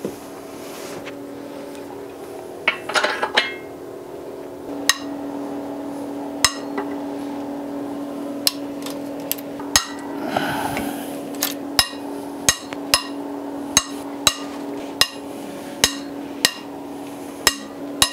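Long wrench working the cylinder head bolts of a Honda J35 V6: metal-on-metal knocks as the socket goes onto a bolt, then a run of sharp clicks about two a second, with a scraping creak about halfway through. A steady hum sits underneath.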